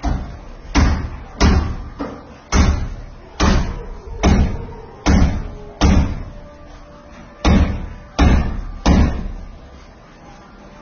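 About eleven heavy hammer blows on the kitchen counter under construction, roughly one every second, with a longer break a little past the middle; each blow trails off briefly.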